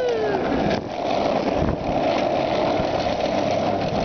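Skateboard wheels rolling fast over rough asphalt, a steady rolling rumble. A brief pitched whine slides down and fades at the very start.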